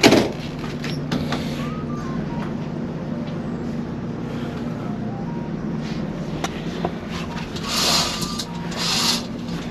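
Steady low drone of the ferry's engines heard inside the ship, with a knock right at the start and two swishes near the end as a berth curtain is pulled aside.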